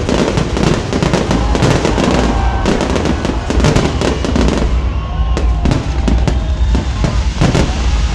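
Fireworks display: a dense, rapid barrage of bangs and crackling over a continuous low rumble, thinning slightly in the second half.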